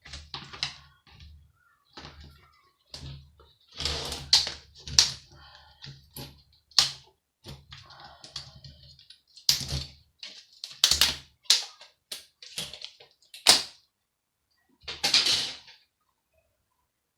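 Irregular clicks, knocks and snaps of a computer monitor being taken apart by hand, its plastic casing and parts being pried and handled, with a brief scraping sound about fifteen seconds in.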